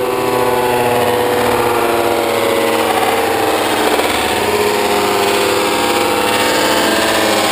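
MotoGP racing motorcycles' four-stroke engines running at high revs as two bikes race past, several engine notes sliding in pitch: falling early on as they shift and brake, climbing again near the end as they accelerate.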